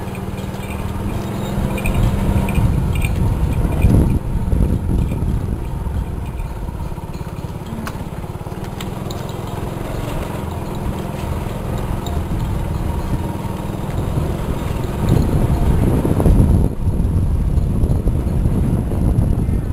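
A small engine running steadily, with a low hum throughout and getting somewhat louder about three quarters of the way in.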